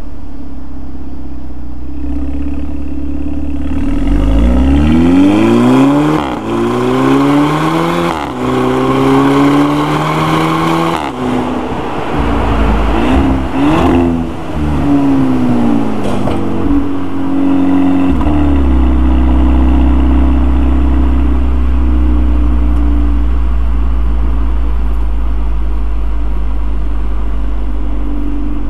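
Volkswagen Golf GTI MK6's turbocharged four-cylinder running through an APR RSC turboback exhaust. It idles low, then accelerates hard through three quick DSG upshifts, about 6, 8 and 11 seconds in, and each shift gives a brief 'DSG fart' from the exhaust. After a few shorter rises and falls in revs it settles back to a steady low note for the last ten seconds.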